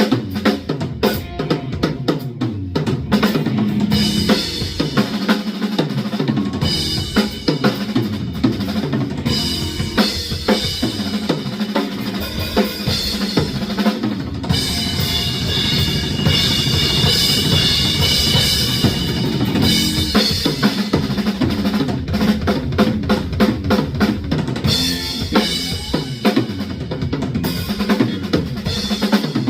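Live band playing an instrumental passage, with the drum kit driving it on bass drum, snare and cymbals.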